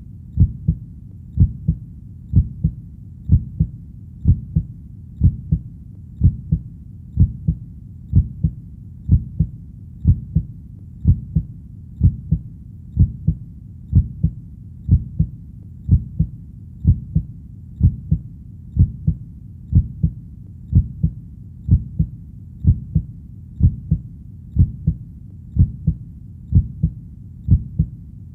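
Heartbeat: steady double thumps (lub-dub), about one beat a second, low and dull, over a faint steady low rumble.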